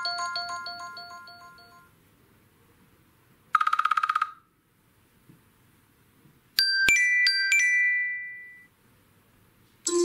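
A run of iPhone ringtones and alert tones played back one after another. A repeating chime pattern fades out over the first two seconds, a short rapid buzzing trill comes about three and a half seconds in, a quick run of four bright plucked notes rings out near seven seconds, and a new busy melodic ringtone starts at the very end.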